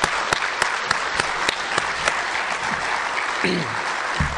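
Audience applauding: many hands clapping steadily, with a few louder single claps close to the microphone. A short voice is heard about three and a half seconds in.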